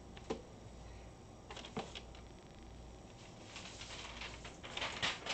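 Faint handling noises at the heat press: a few light clicks and knocks, with a soft rustle building near the end.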